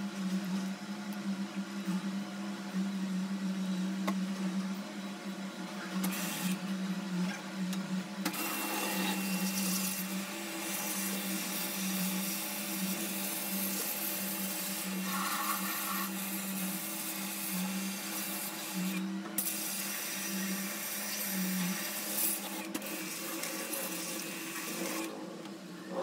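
An electric motor hums steadily. Water spraying from a hose into the washing-machine tub makes a loud rushing hiss from about eight seconds in until just before the end.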